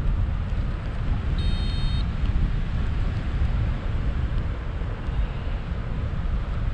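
Airflow rushing steadily over the microphone during a paraglider flight, strongest in the low range. A short, high electronic beep sounds about a second and a half in.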